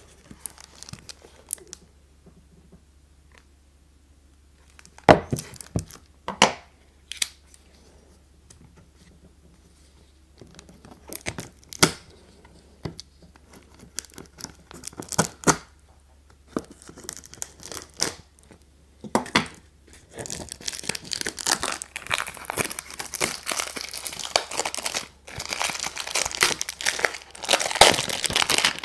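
Cellophane wrap on a cigar box being slit with a utility knife, heard as scattered sharp scratches and crackles. About two-thirds of the way in, the cellophane is torn and peeled off the box, giving continuous dense crinkling.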